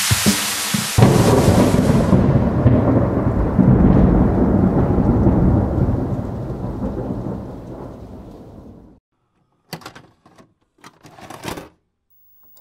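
Thunder sound effect: a sharp hissing crack, then a long rumble that slowly fades out over about eight seconds. A few short clicks and clunks follow near the end.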